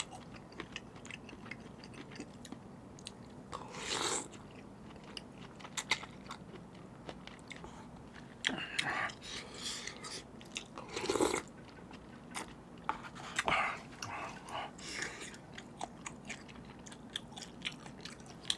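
Close-miked chewing and biting of jjamppong (Korean spicy seafood noodles), full of small wet mouth clicks, with several longer, louder noisy bursts spread through.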